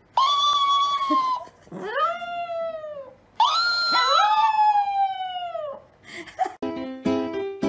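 Chihuahua howling: three long howls, each rising then sliding down in pitch, followed by a short yip. Plucked-string music starts near the end.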